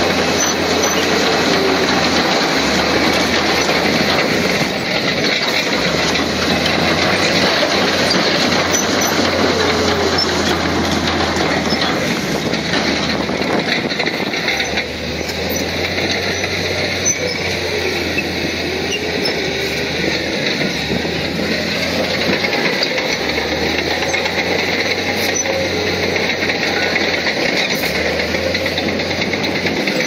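Heavy diesel construction machinery working: a loud, steady engine whose pitch wanders up and down.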